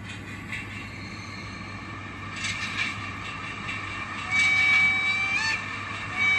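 An N scale DCC locomotive's sound decoder plays a horn through the model's small speaker. A steady high horn note is held for about a second, starting just past four seconds in, and ends with a short upward bend. It starts again just before the end, after a couple of short hissing sounds earlier on.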